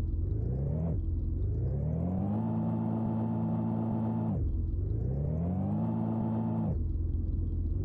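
Vehicle engine revving up, holding at high revs for a second or two, then dropping back sharply. The cycle repeats about every three and a half seconds.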